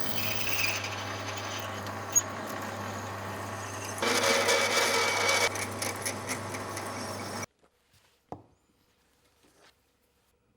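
An electric motor running steadily with a low mains hum, louder for a while from about four seconds in, then cutting off abruptly about seven and a half seconds in, followed by a few faint clicks.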